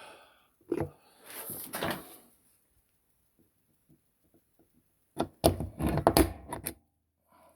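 Handling noise on a workbench: a sharp click and a brief rustle, then a quiet spell, then a cluster of loud knocks and clatter as tools and the workpiece are moved about.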